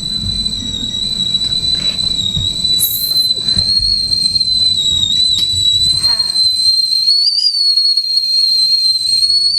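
Kettle whistling at the boil: one steady, high, piercing whistle that wavers briefly about two thirds of the way through.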